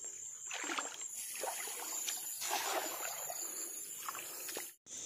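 Irregular rustling and light splashing of someone moving through grass and shallow water at a riverbank, over a steady high chirring of crickets. The sound drops out briefly near the end.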